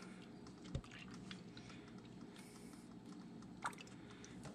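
Faint soft sloshing with scattered small clicks and taps as half-and-half is poured into an Instant Pot's stainless steel inner pot and stirred with a wooden spoon, with one low thump under a second in.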